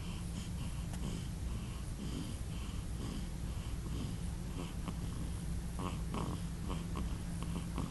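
A small pet snoring and breathing as it sleeps, soft raspy snores repeating about twice a second over a steady low hum.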